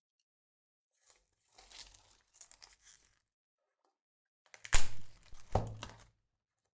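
Two short spells of crackling, scraping noise. The first is soft and comes about a second and a half in; the second, louder one comes near five seconds in.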